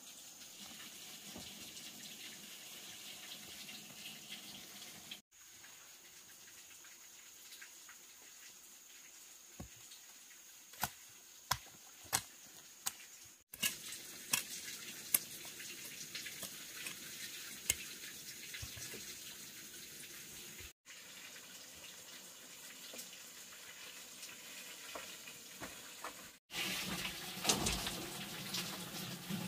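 A steel hoe chopping and scraping into earth, with several sharp knocks, as soil is pulled onto a woven bamboo tray; near the end, loose soil is tipped from a basket onto a slatted bamboo sieve, a louder rushing patter of falling earth.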